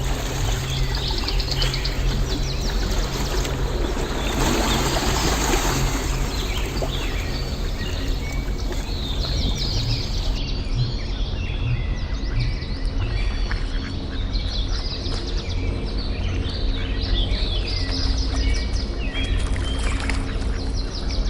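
Several birds chirping over a steady low hum, with a short rush of noise about four seconds in.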